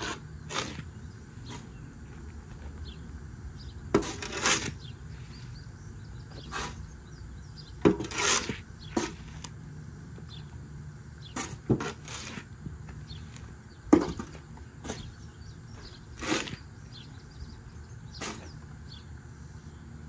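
Two shovels scooping loose sawdust and tossing it into a tractor's steel front-loader bucket: a scrape and swish about every two seconds, several strokes starting with a sharp scrape or knock of the blade. A steady low hum runs underneath.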